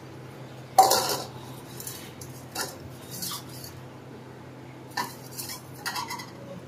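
Stainless-steel kitchen utensils clinking: one sharp metallic clank with a brief ring about a second in, then several lighter clinks and taps.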